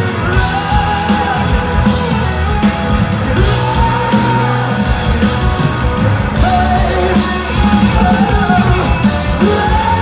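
Rock band playing live, recorded from within the audience: a male singer holds long, sliding notes over loud electric guitars, bass and drums.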